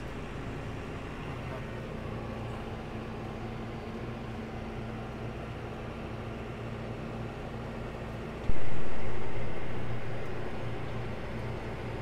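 John Deere tractor's engine running steadily, a low even drone heard inside the cab while mowing hay. About eight and a half seconds in, a single deep thump stands out above it.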